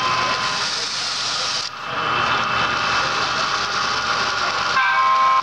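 Model diesel locomotives running along the layout track: a steady whirring hiss mixed with show-hall background noise, briefly dropping away about a second and a half in. Near the end a held chord of several steady tones comes in.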